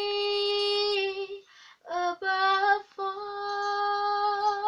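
A girl singing unaccompanied, holding out the closing notes of a worship song: a long steady note, a short break, two brief notes, then a final long held note that wavers into vibrato near the end.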